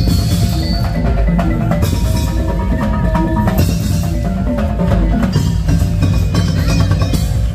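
Madurese tong-tong music: a percussion ensemble of wooden slit drums with drums and tuned metal percussion, playing a dense, steady beat.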